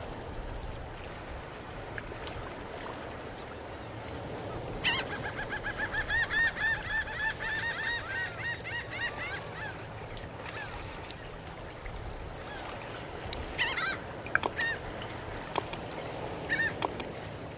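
A bird calling: a quick run of repeated rising-and-falling calls starting about five seconds in and lasting some five seconds, then a few shorter calls near the end, over a low steady hum.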